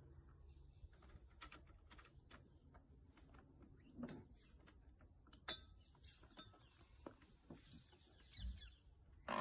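Faint birdsong with scattered light clicks and knocks from a road bike being handled on a bike carrier; a soft knock about four seconds in as the bike is set into the wheel trays, and a sharp click about a second and a half later.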